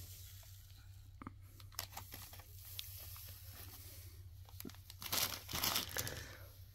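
Scattered crackling and rustling handling noises, rising to a louder burst of rustling about five seconds in.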